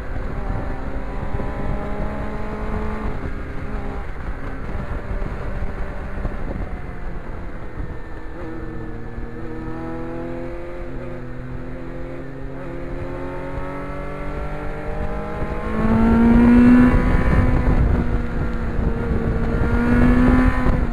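Kawasaki Ninja sport bike's engine running under way with wind rushing over the onboard microphone. The engine note dips, then climbs steadily through the second half, getting louder and higher about three-quarters of the way in as the bike accelerates.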